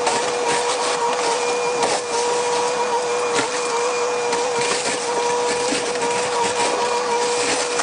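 Excavator engine and hydraulics running at steady high revs with a constant whine. Irregular cracks and crunches of debris being broken run through it.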